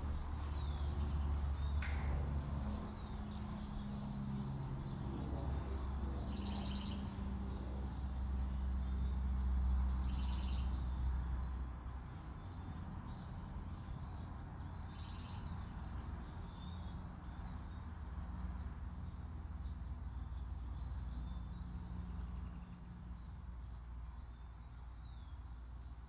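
Dance soundtrack of a deep steady drone with a few held low tones, overlaid with short high falling chirps about every second and a few brief buzzy bursts. The drone drops in level about twelve seconds in.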